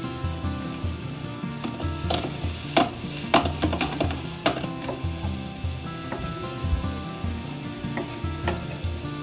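Mushrooms sizzling as they fry in a pan, with a run of scraping and clattering about two to four seconds in as they are stirred. Near the end, two knife cuts click on a wooden cutting board.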